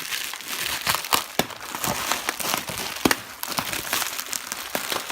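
Packing material crinkling and rustling as it is pulled and handled while a package is unwrapped, with many sharp crackles and snaps throughout.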